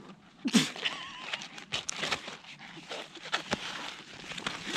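Crackling and rustling as a climbing skin is handled and pressed onto a splitboard, a run of short sharp clicks, with a brief voice sound about half a second in.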